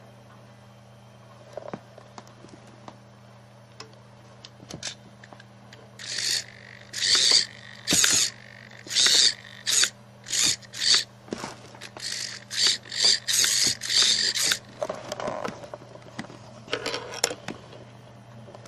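Vintage Tamiya Hornet RC car's servo and electric drive being blipped on the bench. About half way in comes a rapid string of roughly a dozen short mechanical whirs, then two lower, longer whirs near the end, over a steady low hum.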